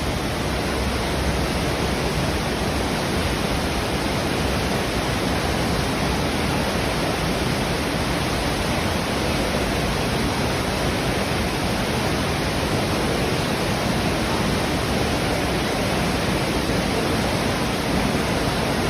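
Heavy rushing water from storm flooding: a steady, even rush that does not change.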